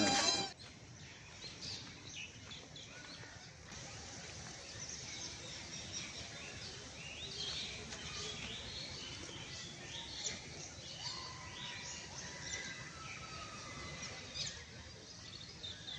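Several birds chirping with short, high calls, scattered throughout over steady outdoor background noise.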